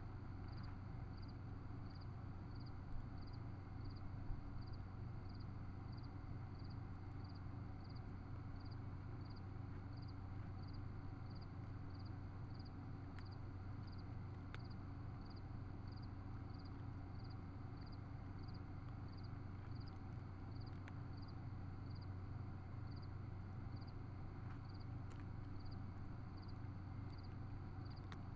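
Faint steady low hum with a short high pulse repeating evenly about twice a second, and a few soft clicks, the loudest about three and four seconds in, from a cat eating dry kibble out of a plastic tray.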